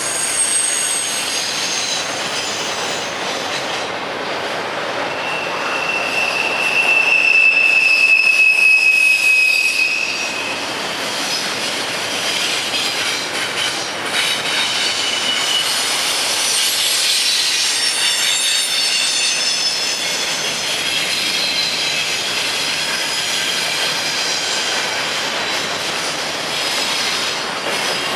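Freight train cars rolling past with steel wheels squealing on the rail in high, shifting tones. The loudest squeal is one long, steady tone from about six to ten seconds in.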